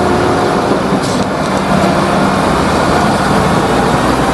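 Diesel engine of a MAN concrete mixer truck running steadily as the truck pulls forward, with a low, even drone. A short hiss comes about a second in.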